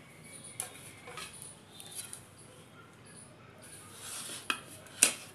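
Hands shaping a soya-chunk kebab and setting it on a paper plate: soft rustling of the crumbly mixture with scattered light taps of hand and dish. Two sharper taps come near the end, the last one the loudest.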